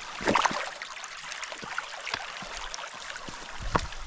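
Steady rush of a small creek, with a few sharp knocks and scuffs as someone steps across its rocks, loudest just after the start and again near the end.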